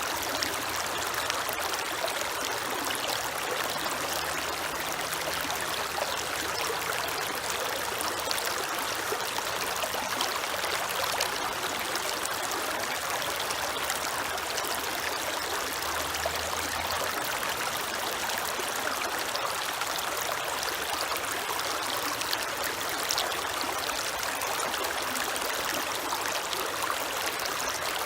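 Creek water flowing over its bed in a steady, even rush. A faint low hum comes and goes underneath.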